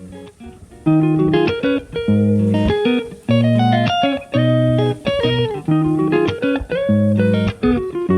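Background music: plucked guitar playing melodic phrases over bass notes, growing louder about a second in.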